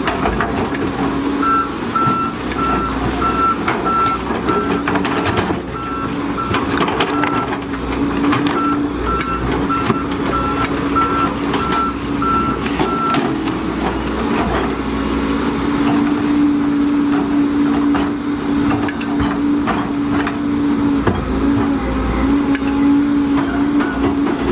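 Volvo EC210DL excavator running, its engine a steady hum with scattered knocks from the working machine. A warning alarm beeps about twice a second from about a second and a half in until about thirteen seconds in, pausing briefly about halfway through.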